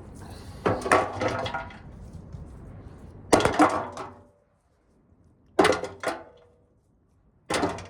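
Four bursts of clattering knocks, each with a short metallic ring, as hard objects are handled. A steady rushing background stops abruptly after the second burst.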